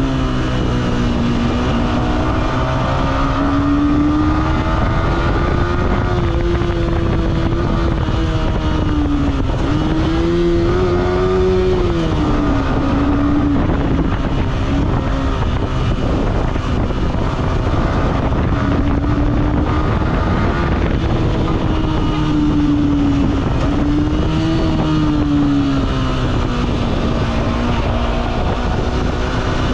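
Yamaha R15M's single-cylinder engine through its stock exhaust, its note rising and falling with the throttle several times while riding. Underneath is a steady rush of wind and road noise.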